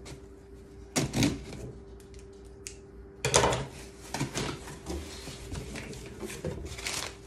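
A cardboard subscription box being cut open with scissors and unpacked: a couple of sharp snips and rustles about a second in, then a run of clattering and rustling of cardboard and packing from about three seconds on.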